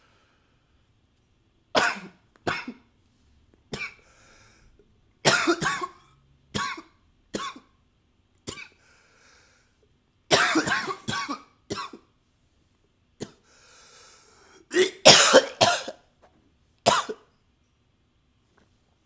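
A man coughing, about a dozen coughs: single ones and short fits of several in quick succession, with breaths drawn in between. Recorded close to the microphone.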